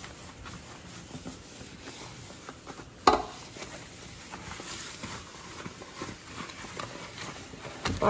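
Sponge scrubbing a wet kitchen sink: a faint rubbing and scraping with small scattered ticks, and one sharp knock about three seconds in.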